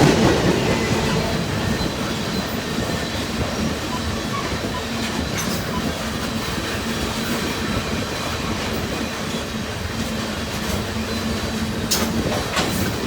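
Freight cars of a long train rolling past steadily on jointed or welded track, with an even rumble and a faint steady hum, and a few sharp wheel clicks near the end.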